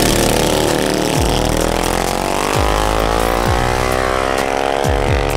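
Small mini bike engines at full throttle as two drag-racing mini bikes launch down the strip, the engine note rising steadily in pitch.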